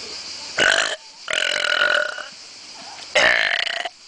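Three loud burps from young boys: a short one, then a longer drawn-out one of about a second, then another near the end.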